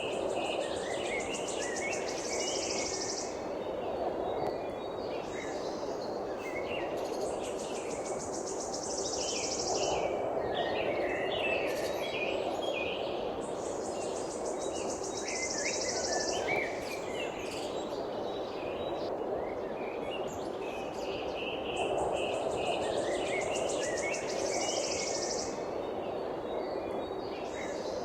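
Birds chirping and calling in short scattered notes, with a high buzzing trill that comes four times, each lasting two to three seconds, over a steady low hiss.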